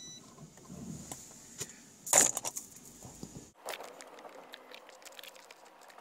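Light jangling and clicking rattles inside a car, with a loud clatter about two seconds in. The low rumble of the car cuts out abruptly about halfway through.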